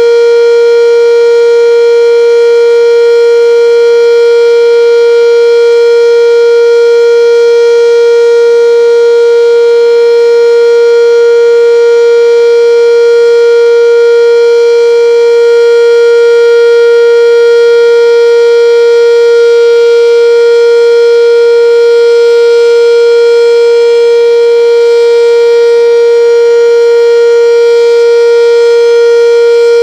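Sentry 10V outdoor warning siren sounding its full-alert signal: a loud, steady tone that holds one pitch without rising or falling.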